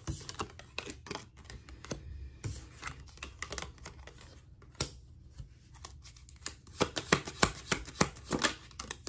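A deck of cards shuffled by hand, overhand: an irregular run of quick card flicks and snaps, thickest about seven to eight seconds in.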